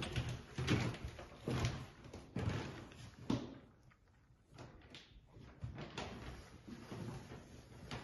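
Footsteps on a bare parquet wood floor, a step a little more often than once a second, then a short pause near the middle before the steps go on.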